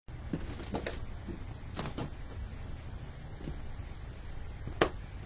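Scattered light taps and clicks from handling paintbrushes and painting supplies, with one sharper click near the end, over a steady low hum.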